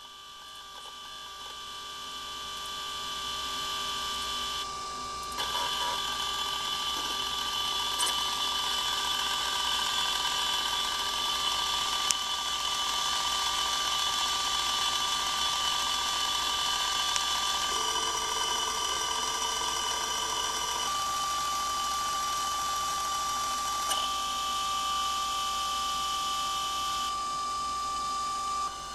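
Iomega Zip drive running close up while reading or writing a disk: a steady motor whine with several high tones that grows louder over the first few seconds, changes its tone pattern every few seconds, and cuts off abruptly at the end.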